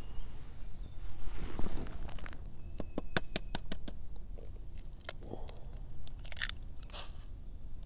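Small twig fire crackling in a tin-can hobo stove, with a run of sharp snaps and pops about three seconds in and a couple of short scrapes near the end.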